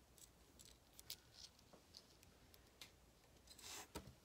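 Near silence with faint scattered clicks of small wooden embellishment pieces being handled in the palm, and a brief rustle with a click near the end as a hand reaches into the cardboard box.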